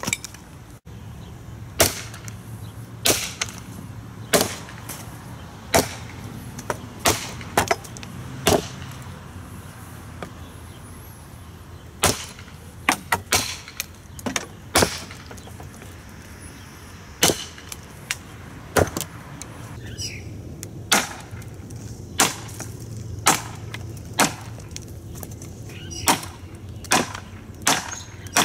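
Helko camping hatchet striking wood again and again, a sharp chop every second or two with short pauses, splitting firewood into kindling; near the end it chops into a wooden pallet.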